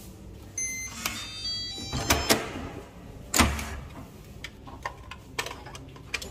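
Hotel room door being unlocked and opened: the electronic lock gives short high chirps, then the latch clicks twice and the door knocks open with a thud about three and a half seconds in, followed by a few light clicks.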